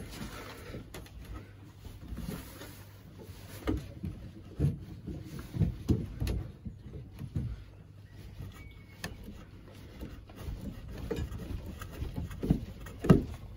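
Irregular knocks, clicks and scuffs as a hand works a copper pipe into a plumbing fitting, with a sharper knock near the end.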